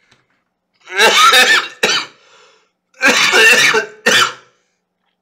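A man coughing: two loud bouts about two seconds apart, each ending in a shorter second cough.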